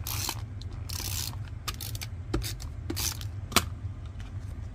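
Hands rubbing and sliding a white cardstock panel on a work mat: several short paper swishes and a couple of sharp clicks, over a steady low hum.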